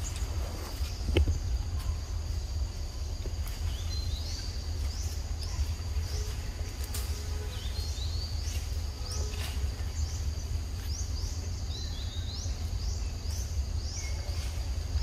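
Forest ambience: a steady high insect hum with short chirps rising in pitch, repeated about once or twice a second from about four seconds in, over a low rumble.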